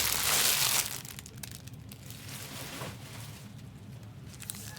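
Plastic wrapping crinkling as it is handled: a loud rush of crinkling in the first second, then lighter scattered crackles.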